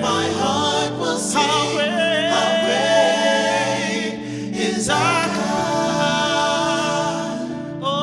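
A contemporary Christian worship song: voices singing a melodic line over sustained instrumental chords.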